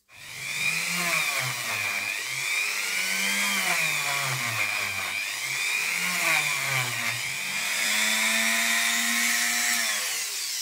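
Small hand-held rotary tool running as it polishes the dirty metal wheels of a model locomotive bogie; its whine wavers up and down in pitch as the tool is worked, holds steadier near the end, then winds down just before the end.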